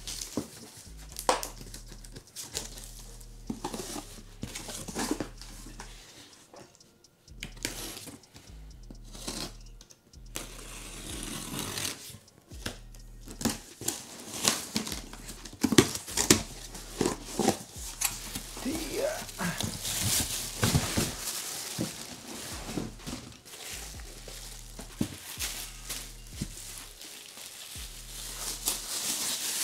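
Cardboard box being opened and handled, then clear plastic wrapping crinkling as a boxed wire wheel is lifted out, with scattered rustles and light knocks.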